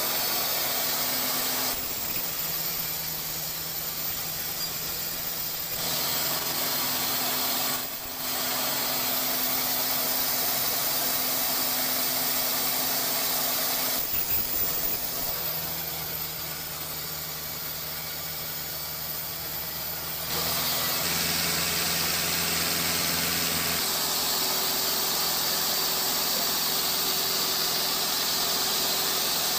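Sawmill machinery running: a steady hissing, humming noise from the headrig band saw and powered conveyor rollers. Its pitch and level shift abruptly several times.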